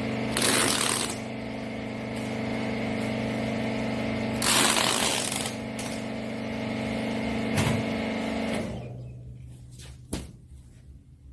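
Hydraulic bagging baler's power unit running with a steady hum, broken by two hissing bursts of about a second each and a knock; the hum stops about three-quarters of the way through, leaving a few faint clicks.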